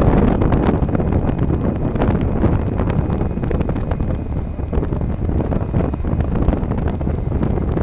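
Wind buffeting the microphone on the open deck of a moving passenger ferry, over the ferry's steady low engine rumble.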